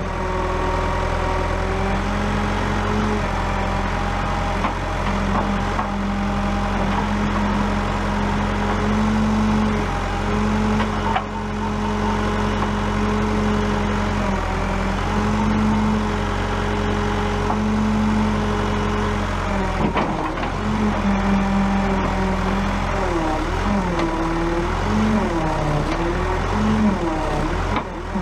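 JCB backhoe loader's diesel engine running under working load, its pitch stepping up and down as the load changes, wavering repeatedly near the end.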